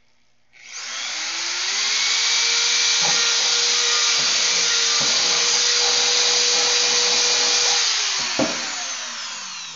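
Corded electric drill (DWT) spinning up and boring a hole through a white PVC pipe cap: a steady high whine for several seconds with a few short knocks, then falling in pitch as it winds down near the end.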